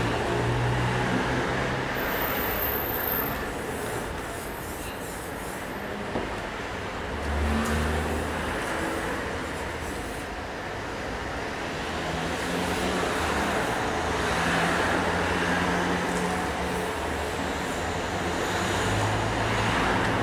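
Road traffic going by, with the sound of passing cars rising and falling in slow swells.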